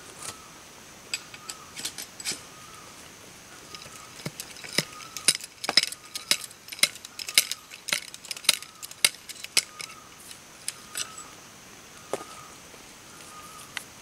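A wooden stick being handled and worked by hand, giving a run of sharp clicks and cracks that come thickest in the middle. A steady high insect drone runs underneath.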